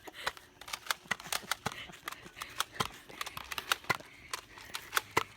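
A rapid, irregular run of sharp clicks and clacks, several a second.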